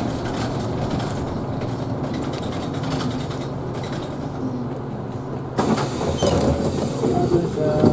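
Isuzu Erga Hybrid city bus heard from inside the cabin, running with a steady low rumble. About five and a half seconds in, a sudden louder noise with some clatter breaks in.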